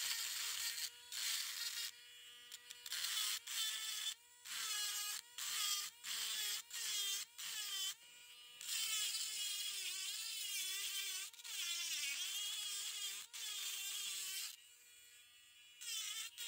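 Dremel rotary tool running at high speed, a thin bit grinding into fossil shell rock. The motor's whine runs throughout, and gritty grinding comes in bursts of a second or so, with longer stretches in the middle; the pitch sags whenever the bit is pressed into the stone.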